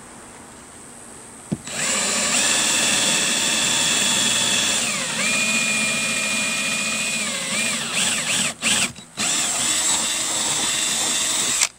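Power drill with a 5/16-inch bit boring bolt holes through a boat's fiberglass deck. The motor starts just after a click about a second and a half in, and its pitch shifts for a couple of seconds midway as the bit bites. It stops twice briefly near the end, runs on, then cuts off.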